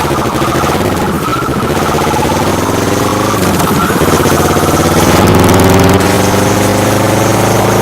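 Kawasaki Vulcan S 650 parallel-twin engine running loud through a full Delkevic aftermarket exhaust, its note dipping about halfway through and then climbing again as the throttle changes, loudest a little past halfway.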